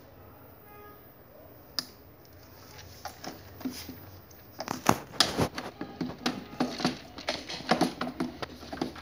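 Hard plastic clicking and knocking as the steering wheel and its wiring plug are handled and fitted onto the steering column of a battery-powered ride-on toy car. One sharp click comes about two seconds in, and a busy run of clicks and knocks follows from about halfway through.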